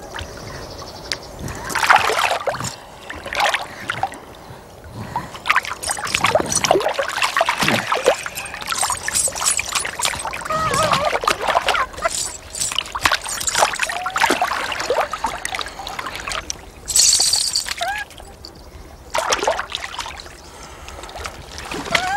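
River water splashing and sloshing in irregular bursts as a monkey is scrubbed and bathed by hand in the shallows.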